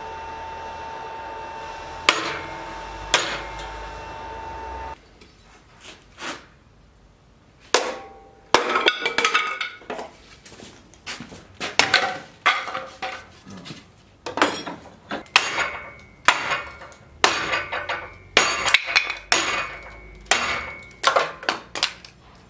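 Repeated sharp chopping strikes, each with a short metallic ring, coming in quick runs: a heat-treated machete blade chopping into a wooden batten clamped in a vise, testing the edge. Before that there is a steady hum with two single sharp knocks.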